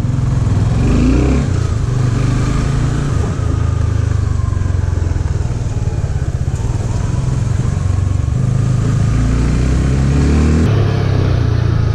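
Motorcycle engine running as the bike rides off at low speed, its note shifting up and down a few times.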